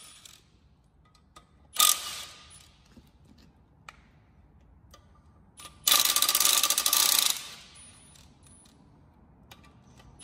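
Impact wrench running bolts out of the engine: a short burst about two seconds in, then a longer rapid rattling burst of about a second and a half near the middle.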